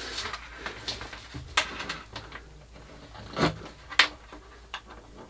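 Irregular clicks and knocks from a small homemade solenoid engine on a wooden base as it is put on 24 volts and handled by hand, its plunger clacking a few times without settling into a steady rhythm.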